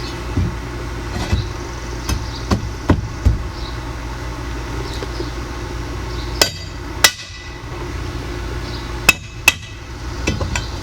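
Hammer strikes on the Post Doctor's metal post-repair bracket: a run of light knocks, then four harder, ringing blows in two pairs, over a steady low engine hum.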